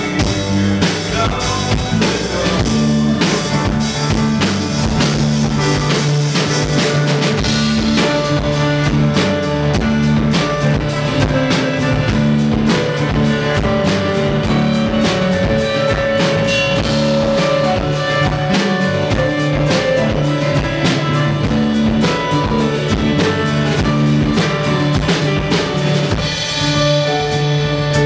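A live band playing a song: keyboard chords over a drum kit keeping a steady beat.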